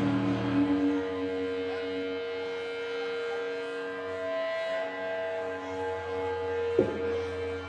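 Electric guitar feedback ringing through a stage amplifier: a steady held tone over low amp hum, with a single thump near the end.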